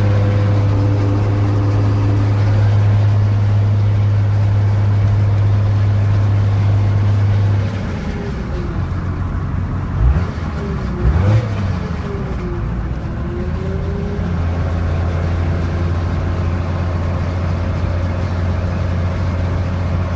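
12-valve Cummins 5.9 L inline-six diesel running with a failed turbocharger bearing. A steady low drone drops about eight seconds in, gliding tones and two brief louder surges follow, and then it settles back into a steady drone.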